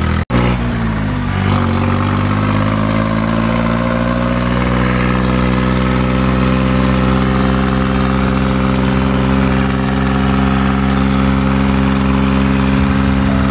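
New Holland 3630 tractor's diesel engine running under way on the road. After a momentary dropout near the start, the engine note climbs for a few seconds, then holds steady.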